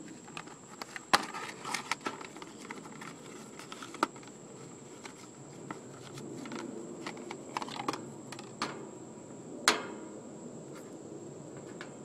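Cardboard box of a new run capacitor being opened and handled by gloved hands: irregular rustles, taps and sharp clicks, the loudest knock about ten seconds in as the metal capacitor can is handled and set down.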